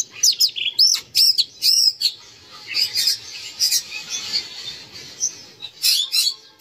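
Birds chirping: a quick run of repeated, high, arched chirps for the first two seconds, then a busier mix of chirps from several birds, with a louder cluster near the end.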